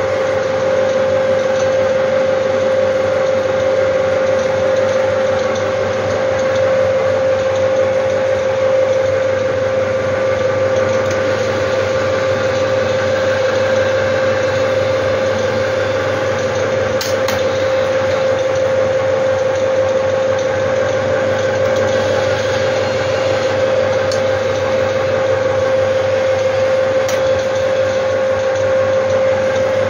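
Strong Simplex Millennium 35 mm film projector running: a steady mechanical whir with a constant hum through it.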